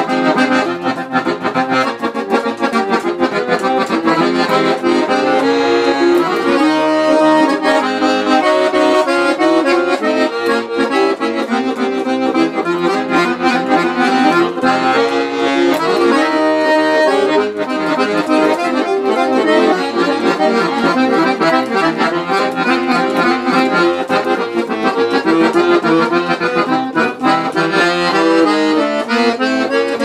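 Piano accordion playing a tune without pause, a melody over held chords.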